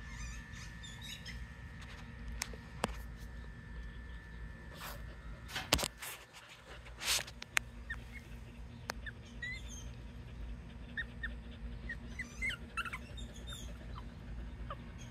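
A four-week-old Pomeranian puppy giving a run of short, high squeaks in the second half, over a steady low hum. A few knocks and rustles come around the middle.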